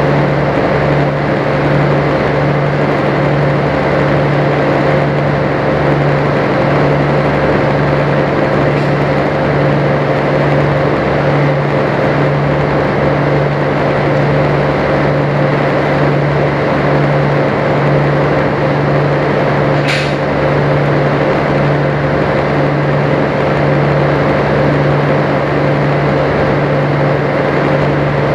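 Sightseeing boat's engine running steadily under way: a loud, constant low drone with a steady hum over an even rush of noise.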